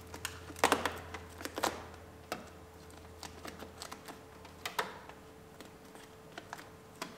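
Scattered light clicks and ticks of hands working on a car door as its plastic water barrier is peeled off the sticky sealant that holds it. A faint low hum stops about two-thirds of the way through.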